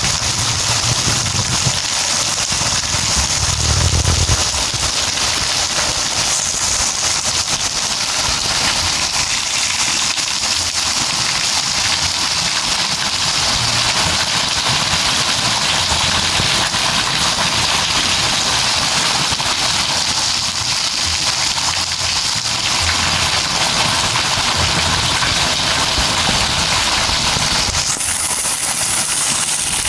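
Steady rain falling, a dense, even crackling patter, with a few low thuds a few seconds in. The hiss turns brighter near the end.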